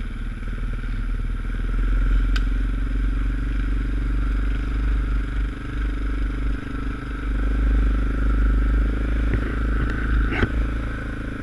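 ATV engine running steadily while riding along a snowy trail. The ATV is fitted with an aftermarket 2R Racing exhaust tip that adds some bass. There is a sharp click about two seconds in and another near the end.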